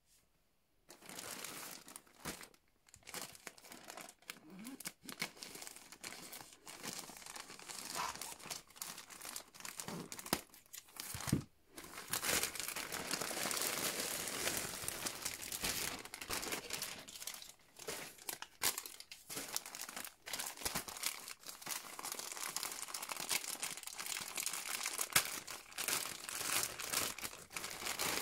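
Plastic poly mailer bag crinkling and rustling as it is handled and opened, then a clear plastic garment bag crinkling in the hands.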